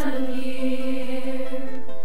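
High-school chorus of mostly girls' voices holding one long sustained chord, which moves to a new chord near the end.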